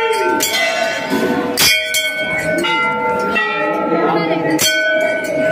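Hanging temple bells struck by devotees, three clear strikes with fainter ones between, each ringing on in long, overlapping tones over the chatter of a dense crowd.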